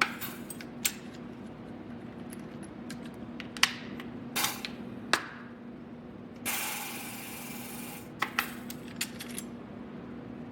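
Sharp metallic clicks and clinks of a steel line being handled in a flaring tool while a bubble flare is formed on its second end, with a short hiss about six and a half seconds in.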